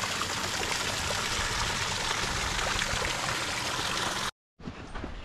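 Small waterfall splashing steadily from an artificial rock mound into a koi pond. It cuts off suddenly about four seconds in, leaving a quieter background.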